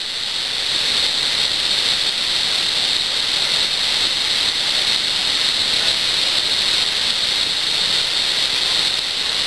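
Floodwater pouring from open dam spillway gates into the river below: a loud, steady rush of white water.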